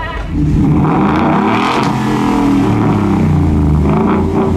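Truck engine revving loudly, its pitch climbing and falling several times. It comes in suddenly a moment after the start.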